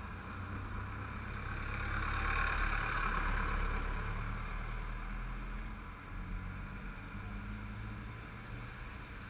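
An old open-bed truck driving past close by: its engine and tyre noise swell to a peak about two to four seconds in, then fade as it moves away. Other road traffic runs on steadily under it.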